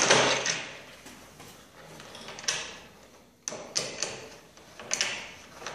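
Plywood jig being handled on a miter saw's plywood extension wing: a few short scrapes and knocks of wood on wood, spaced a second or so apart, as the jig is slid into place and its knobbed T-track bolts are fitted.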